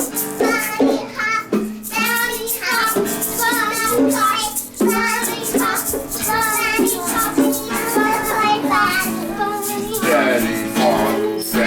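Music with a child singing over a steady instrumental accompaniment.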